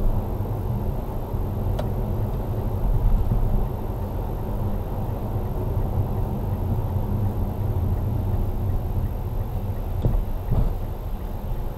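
Steady low rumble of road and engine noise inside a moving car, as picked up by a dashcam, with a thin steady high whine and a few faint clicks.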